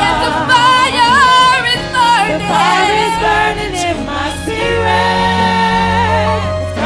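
Gospel choir singing with instrumental accompaniment: voices sing wavering, ornamented lines over sustained low notes.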